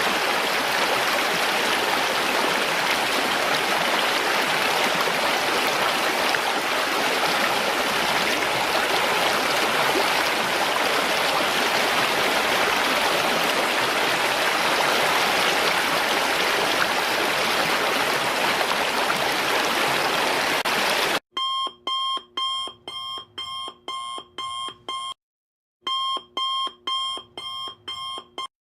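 Steady noise of a waterfall for about twenty seconds, then cut off abruptly by an electronic alarm clock beeping in rapid, evenly spaced pulses, with a brief pause a few seconds in.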